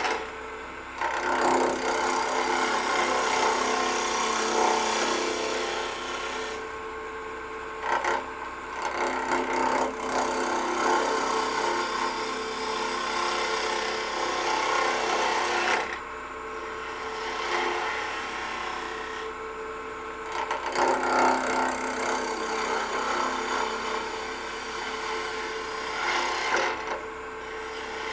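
A turning gouge cutting a spinning limb on a wood lathe: a rough, steady scraping hiss of shavings coming off in passes of several seconds, with a few short breaks where the tool lifts off the wood. The lathe's steady hum runs underneath.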